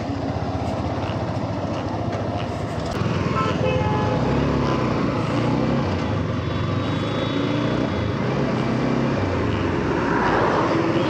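Sport motorcycle engine pulling away and accelerating, its pitch rising and dropping several times as the throttle opens and it shifts up. The recording is from the rider's own bike, with wind noise and road traffic around it.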